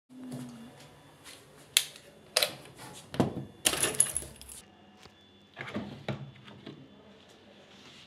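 A run of sharp clinks and knocks from hard objects handled on a front-loading washing machine's metal top, with a short rattling scrape about four seconds in.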